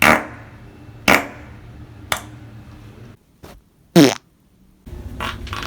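A series of human farts: three short ones about a second apart, then after a brief pause a louder, longer fart whose pitch falls, followed by more short ones near the end.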